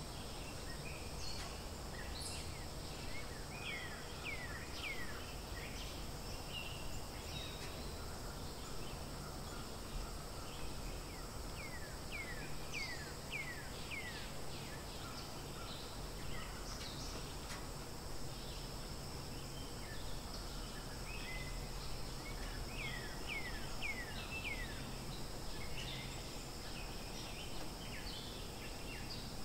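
Forest ambience: a steady high insect drone, with a bird calling three times in quick runs of five or six falling notes, about ten seconds apart.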